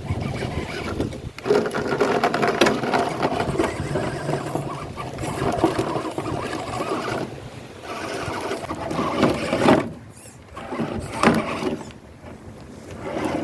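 The 64-turn electric motor and geartrain of a 1/10-scale RC rock crawler whining in uneven throttle surges as it crawls, dropping away briefly twice near the end.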